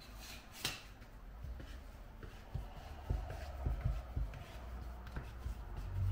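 Kitchen handling sounds during baking: a sharp click about half a second in, then soft knocks and rubbing in the middle.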